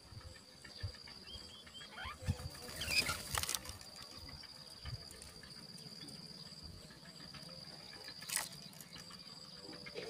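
Yellow-vented bulbul nestlings giving a few faint, short high begging peeps early on, with brief rustles in the nest about three seconds in and again near the end, over a steady high-pitched insect drone.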